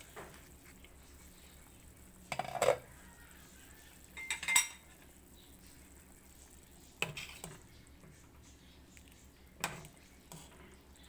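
A metal utensil clinking and scraping against a metal cooking pot of simmering broth, four short clatters a couple of seconds apart, one of them ringing briefly.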